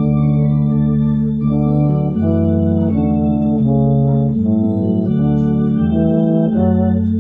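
Organ and euphonium playing a hymn together in slow, held chords that change about once a second.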